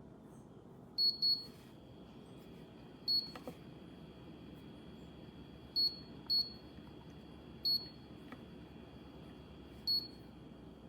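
Short electronic beeps from a Dreo 4-litre humidifier's controls as its settings are changed, seven in all, some in quick pairs. A faint steady high tone comes in with the first beep and keeps going.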